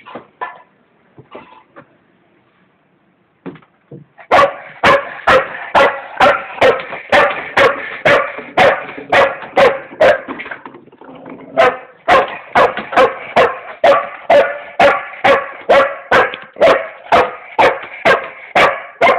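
A dog barking fast and repeatedly, about two barks a second, while trying to get at its ball. The barking starts about four seconds in, after a few faint knocks, and pauses briefly near the middle.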